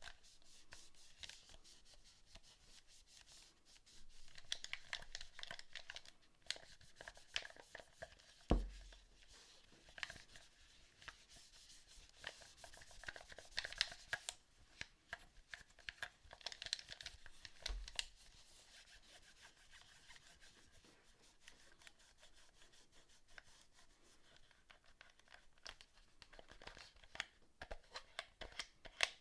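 Hands working on a PS4 controller: quiet rubbing and scraping with many small plastic clicks, a dull thump about eight seconds in and a softer one near eighteen seconds.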